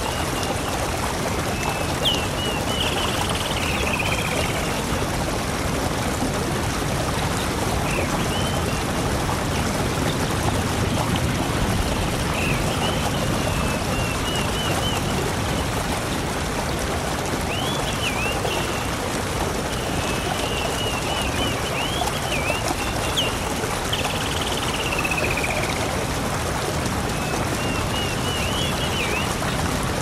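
Steady rush of flowing water, like a waterfall, with birds chirping in short high phrases every few seconds over it.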